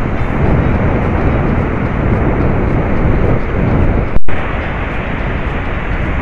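Strong wind buffeting the microphone, with surf beneath. About four seconds in, the sound breaks off for an instant and then comes back with a loud pop.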